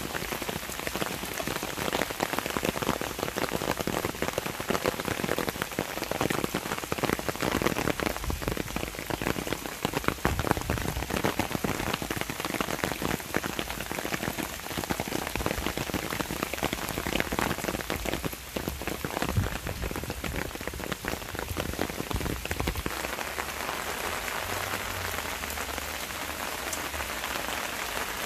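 Rain falling on leaves, grass and ground: a steady, dense sound of many separate drops striking wet foliage close by.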